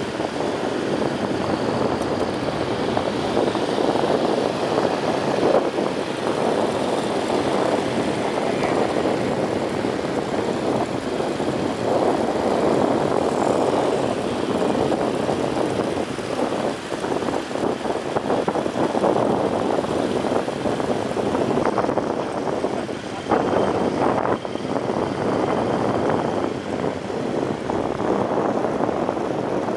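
Motorcycles running along a street at speed: a steady mix of engine rumble and wind rushing over the microphone of a moving bike.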